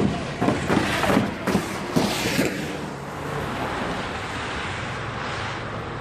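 A run of sharp knocks and clatters for the first two and a half seconds, then the steady engine and tyre noise of a vehicle driving past.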